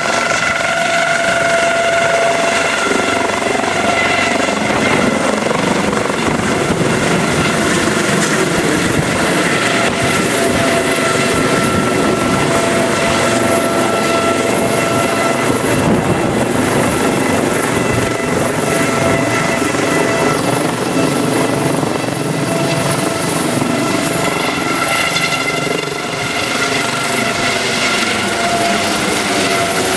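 Eurocopter AS365 Dauphin twin-turbine air ambulance helicopter lifting off and climbing out overhead. A steady turbine whine runs over the rotor noise, with a slight dip near the end.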